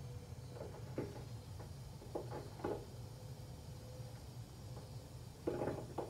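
Rheem Stellar 330 gas storage hot water system kettling while heating: a low steady rumble with a few short, irregular pops. Kettling is the sign of broken-down sacrificial anode sediment on the tank bottom, meaning the system is overdue for a major service with anode replacement and a tank flush.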